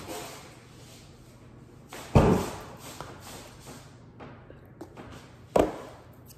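Two loud thuds, one about two seconds in and another near the end, with a few light knocks between them, over a steady low hum.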